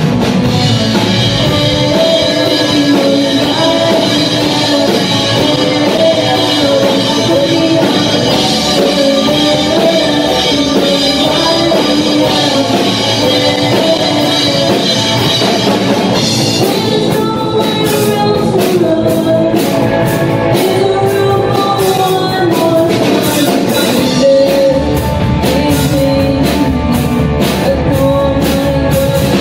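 Live rock band playing a song: a female lead vocal over keyboard, bass and electric guitar. The drum kit comes in with hard, regular hits a little past halfway, and the bass fills out near the end.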